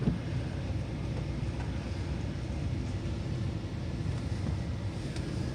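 Steady low rumble of a truck running nearby.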